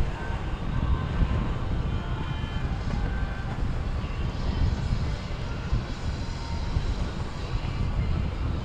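Steady low rumble of boat engines running, mixed with wind buffeting the microphone.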